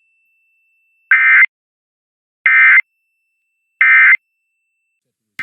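Emergency Alert System end-of-message code: three identical short bursts of SAME digital data tones, about 1.4 seconds apart, signalling that the alert broadcast has ended.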